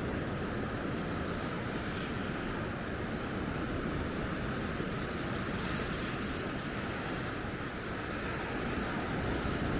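Sea surf washing steadily onto the beach, with some wind buffeting the microphone.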